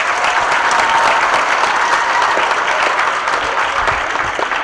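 An audience of schoolchildren clapping: dense, steady applause that begins to die away near the end.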